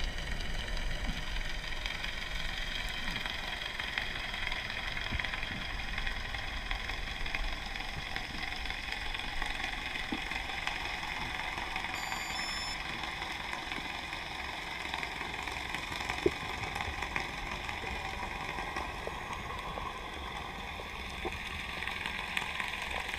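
Underwater ambience dominated by the steady drone of a distant boat engine carrying through the water, with a few faint clicks and a brief cluster of short high beeps about halfway through.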